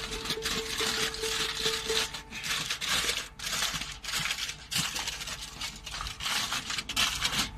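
Aluminium foil crinkling and rustling in irregular bursts as hands press and crimp it around the rim of a steel pot lid.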